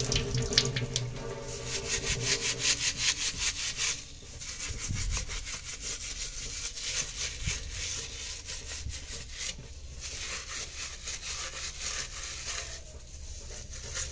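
Scrubber scouring a stainless steel sink in quick, even back-and-forth strokes, scrubbing off stains left by bore water.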